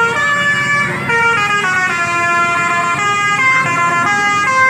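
A bus's Basuri telolet musical horn playing a melody of held notes that step from pitch to pitch several times a second.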